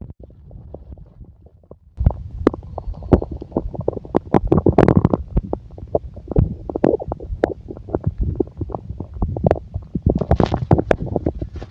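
Stomach growling: a dense run of gurgles and short pops from a person's belly. It is fainter for the first two seconds, then louder and almost continuous.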